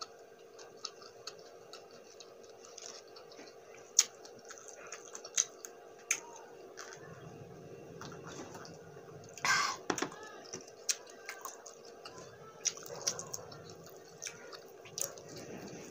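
Close-miked mukbang eating sounds: wet mouth clicks and smacks from chewing buffalo wings, with a drink from an iced glass of lemon water around the middle and a louder sound about nine and a half seconds in. A faint steady hum sits underneath.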